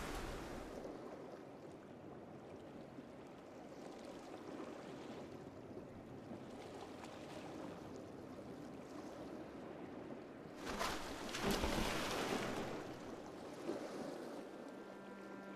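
Sea sound effect: a steady wash of waves and water, swelling louder for a couple of seconds about eleven seconds in.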